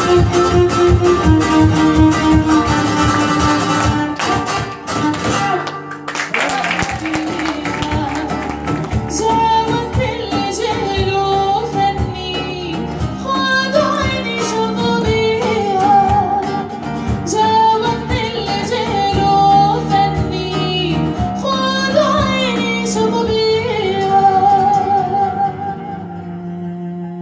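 Live acoustic ensemble music. A flamenco-style guitar strums with hand drums at first. After several seconds a woman's voice enters, singing a classical Arabic melody over sustained cello notes, guitar and hand percussion. The music gets quieter near the end.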